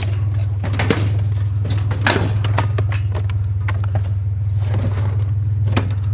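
Pickup truck engine idling steadily, with scattered sharp knocks and clanks from scrap metal being handled.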